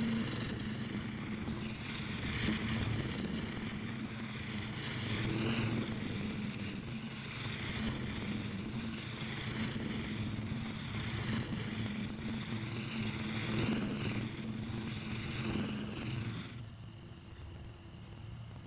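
DR Scout walk-behind brush mower's small gas engine running under load as it cuts through tall weeds, its pitch repeatedly dipping and recovering. The engine cuts off about seventeen seconds in.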